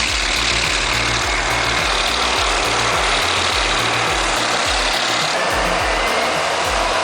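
Heavy earthmoving machine's diesel engine running steadily under background music with a stepping bass line.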